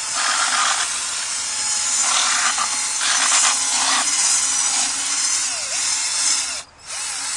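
Cordless drill spinning a paddle mixer through floor leveler in a plastic bucket: a steady, gritty whir of motor and slurry. It stops briefly near the end and starts again.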